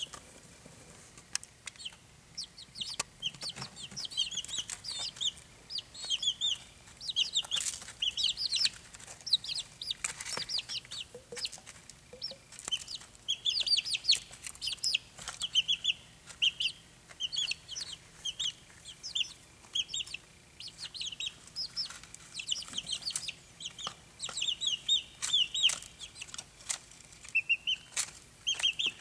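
Barred Rock chicks peeping nonstop, a fast stream of short, high chirps from several birds at once, with scattered light taps of beaks pecking at a plastic feeder.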